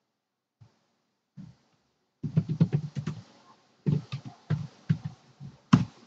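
Typing on a computer keyboard in quick runs of keystrokes, after a couple of single clicks in the first second and a half.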